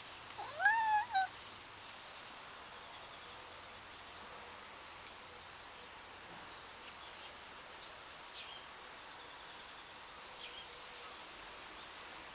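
Brown tabby cat meowing once, a single rising-then-falling call about half a second in. Afterwards only a steady outdoor background hiss with a few faint, short high chirps.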